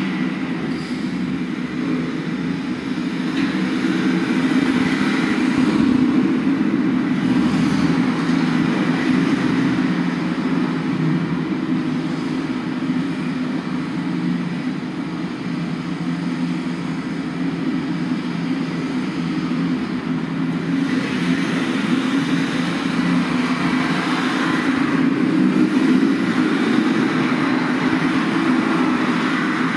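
Steady low rumble with a hiss above it, like road traffic, swelling a little twice.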